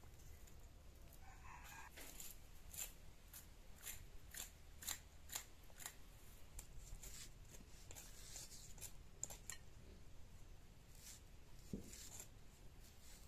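Faint scraping strokes of a blade scaling snakehead fish, about two a second. A rooster crows faintly about a second in.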